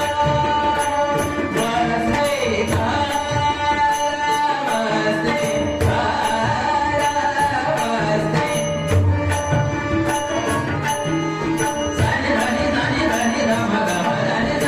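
Marathi devotional bhajan music: a held, slowly bending melody line over a steady, evenly spaced percussion beat with low drum strokes.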